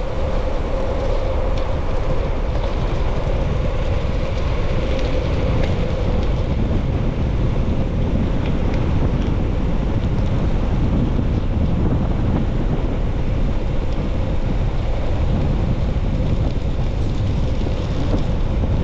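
Steady wind rushing over the microphone while riding along a mountain road, with a low rumble of the ride underneath. A faint steady hum fades away over the first few seconds.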